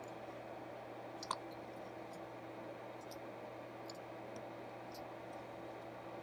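Push-buttons on a Blaupunkt Monterey SQR 23 car radio clicking as they are pressed one after another, a handful of short clicks with the loudest about a second in, over a faint steady hum.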